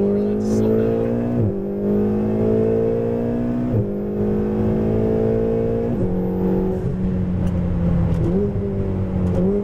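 Ferrari 488 GTB's twin-turbo V8 heard from inside the cabin on track, its pitch climbing slowly and then dropping sharply three times as the gearbox shifts up. After that the engine holds a steady note, with two brief rises in pitch near the end.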